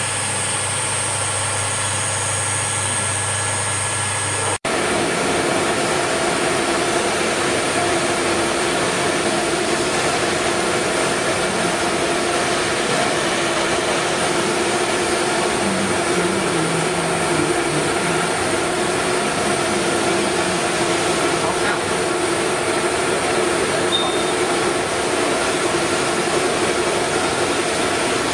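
5-axis CNC router running: a steady machine hum with a high whine and a hiss. About four and a half seconds in the sound cuts abruptly to a different steady machine noise with its own set of steady tones.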